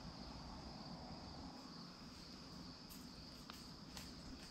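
Steady high-pitched chirring of insects, with a few faint ticks in the last second and a half.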